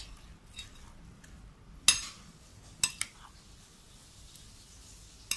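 Spatula clinking against a glass mixing bowl while tossing a chopped fruit salad: a few sharp clinks, the loudest about two seconds in, two close together about a second later, and one more near the end.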